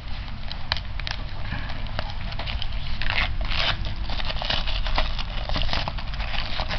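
Cellophane shrink wrap on a DVD case crinkling and crackling as hands peel it off, louder about three seconds in.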